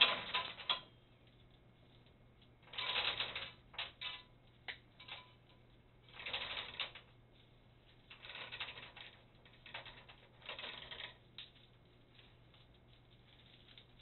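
Steel roller elevator chain from a Brunswick GS-X pinsetter rattling and clinking as it is pulled down by hand and coiled up, in about five bursts of clatter with a few single clicks between.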